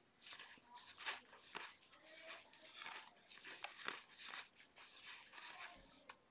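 Cardboard trading cards being thumbed through one by one from one hand to the other: soft irregular flicks and rustles of card sliding over card, a couple each second, faint.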